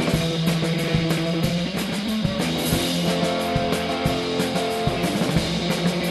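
A rock duo playing: electric guitar over a drum kit with a steady beat.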